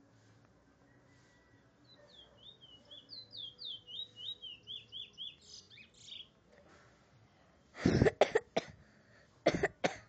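Trinidad bullfinch singing a fast phrase of about a dozen slurred notes, roughly four a second, for several seconds. Near the end, two bouts of loud coughing from a person drown it out.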